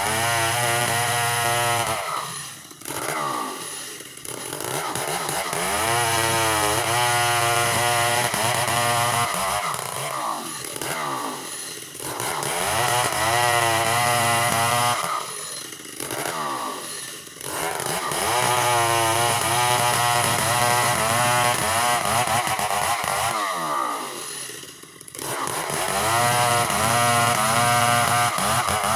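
Two-stroke chainsaw ripping a log lengthwise into planks. The engine runs at full throttle under load through each cut, with its pitch wavering, and drops back to idle for a moment about five times between runs.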